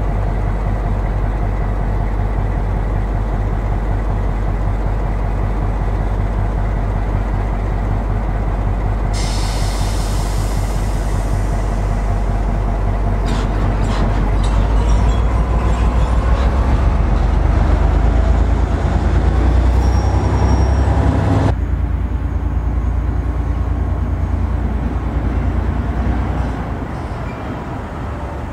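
Green Cargo T44 diesel-electric shunting locomotive working, with a steady low engine drone that grows louder in the middle. From about a third of the way in, a hiss and a few metallic clanks ride over it and cut off abruptly about three quarters of the way in.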